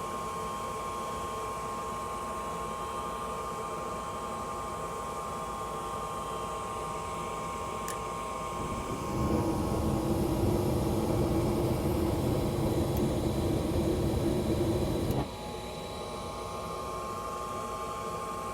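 Gas furnace running with a steady motor hum; a click about eight seconds in, then the burners light with a loud low rumble that cuts off suddenly about six seconds later, leaving only the hum: the burners failing to stay lit.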